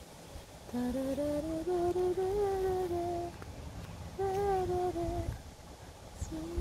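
A person humming a slow tune, sustained notes stepping up and then down, in three phrases with short pauses between.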